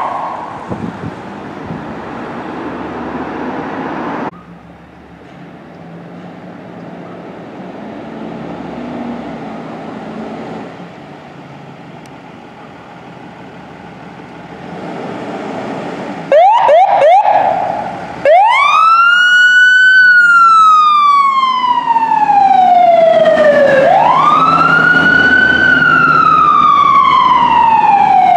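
Ambulance's electronic siren. After some quieter street traffic noise, it gives a few quick chirps about sixteen seconds in, then settles into a loud wail that rises quickly and falls slowly, about five seconds per cycle.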